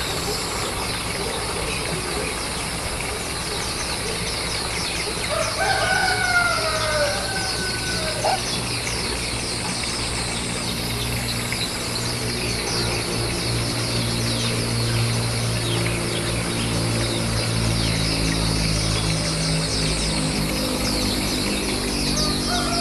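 Many short, high bird chirps throughout. About five seconds in, a rooster crows once, the loudest sound. Low steady tones come in during the second half.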